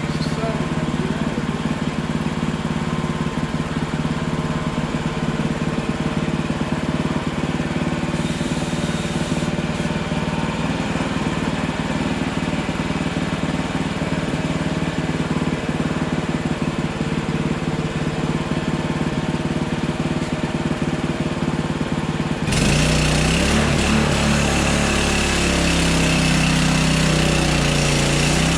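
Hudson Hunter band sawmill's gas engine running steadily. About 22 seconds in it suddenly gets louder and noisier, with a high whine added.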